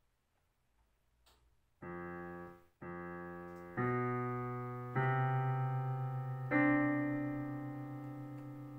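Digital piano played slowly: after about two seconds of near quiet, five chords are struck about a second apart, the first two let go quickly and the last held so it rings and fades.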